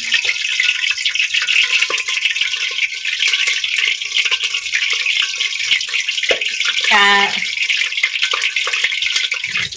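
Steady crackling hiss of falling rain and hot cooking oil in a kadai spitting where raindrops land in it. A short vocal sound comes about seven seconds in.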